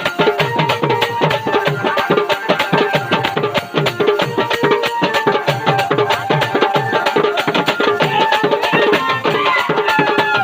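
Dholki (dholak) drumming in a fast, steady dance rhythm, its low bass strokes sliding down in pitch, under a melody instrument playing a tune: Indian wedding band (baja) music.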